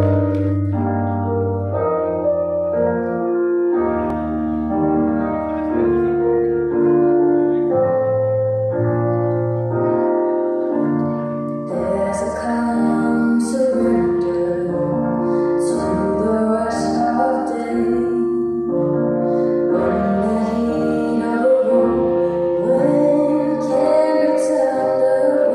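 A slow song with held piano or keyboard chords; a singing voice comes in about halfway, along with light high percussion.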